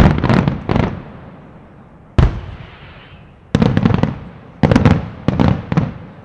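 Aerial firework shells bursting in a display: a rapid cluster of sharp bangs at the start, a single bang about two seconds in, then three more quick clusters of bangs in the second half. Each bang fades out over a second or so.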